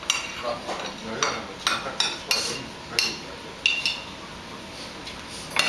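Chopsticks and a spoon clinking and tapping against ceramic side-dish bowls and plates while eating: about a dozen short, sharp clinks at an irregular pace.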